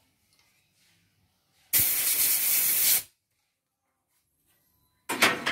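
Compressed-air blow gun on a coiled hose blasting air at an embroidery machine's circuit board to dry off cleaner used on an oily liquid. One loud hiss about a second and a half long starts about two seconds in, and a second blast starts near the end.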